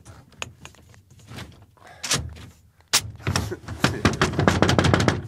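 Powered retractable truck bed cover worked by remote: a few scattered clicks, then from about three seconds in a rapid run of clicking from its mechanism, which is malfunctioning and will not close properly. It sounds angry.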